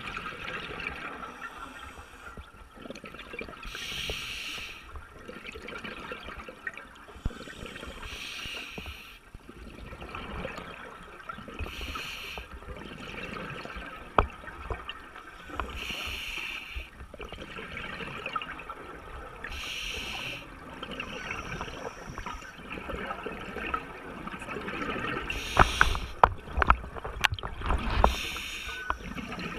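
Scuba diver breathing through a regulator underwater: a rush of exhaled bubbles about every four seconds over a murky underwater background, with a few sharp clicks near the end.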